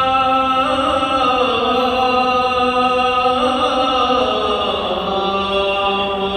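Vocal chant: a single voice holding long, drawn-out notes that glide slowly between pitches and settle lower near the end.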